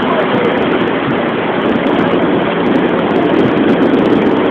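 Steady drone of a boat under way at sea: engine noise mixed with the rush of wind and water.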